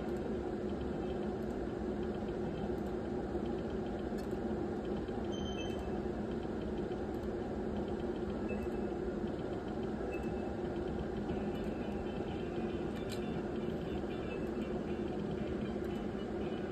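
Steady low hum of a video slot machine and the room around it while the reels spin, with a few faint short electronic tones from the machine.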